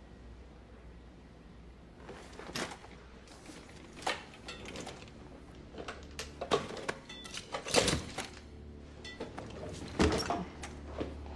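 Film soundtrack: a low, steady music drone with scattered knocks and thumps, the loudest about eight and ten seconds in, as a seated man in a wheelchair leans forward and pushes on the table.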